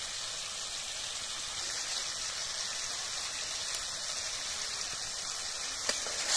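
Masala paste frying in hot oil in a steel kadai, a steady sizzle, with a faint tick or two of the metal spatula as chilli powder is added and stirred in.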